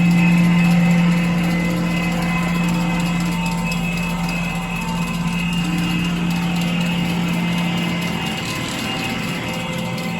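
Nilfisk Advance SC1500 REV floor scrubber running with a steady low hum and higher whining tones over it, a little louder in the first second. This is the weird, bad sound the owner flags as a fault in the machine.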